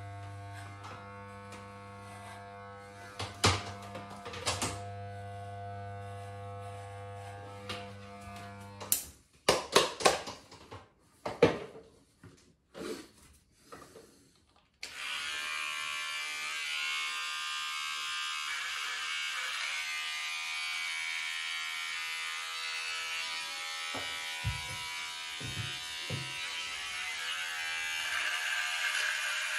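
Corded electric hair clipper buzzing steadily with a low mains hum as it cuts stubble on a shaved head. It cuts off about nine seconds in, followed by a few sharp clicks and knocks. From about halfway through, a different electric shaver runs on the jaw and neck with a steady, higher, hiss-like whir.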